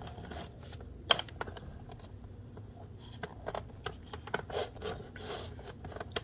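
Spatula scraping and pushing sticky seitan dough around the inside of a plastic food processor bowl, with irregular scrapes and small knocks against the bowl and blade. One sharp knock comes about a second in.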